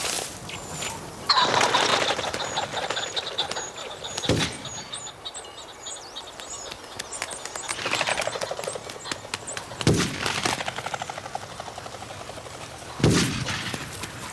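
Birds chirping, broken by about five loud gunshots that each fade with a short echo; the loudest come near the start and near the end.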